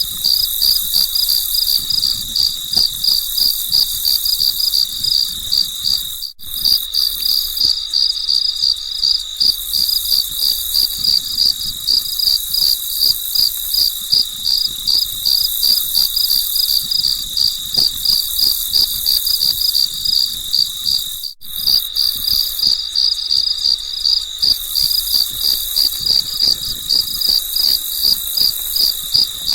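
Crickets chirping in a rapid, even rhythm, twice cut by a momentary gap.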